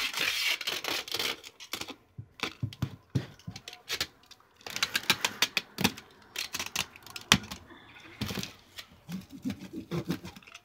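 Clear packing tape being pulled off the roll in several crackling, ripping bursts and smoothed down onto a cardboard box, with rubbing of hands on the tape and cardboard.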